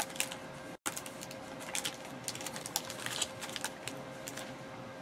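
Soft, scattered clicks and taps of trading cards and plastic sleeves being handled and shuffled on a desk, over a faint steady hum.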